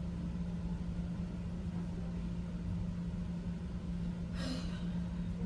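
Steady low mechanical hum of household equipment, with a short sharp noise about four and a half seconds in.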